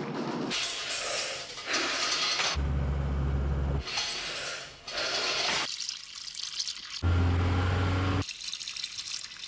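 Bursts of rushing, water-like hiss that cut in and out abruptly, with a deep steady hum coming in twice in between.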